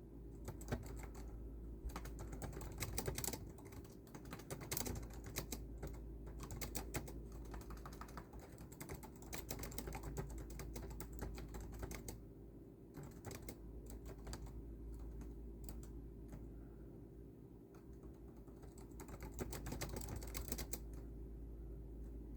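Typing on a computer keyboard: a fast, uneven run of key clicks that eases briefly about twelve seconds in and again near seventeen seconds, over a low steady hum.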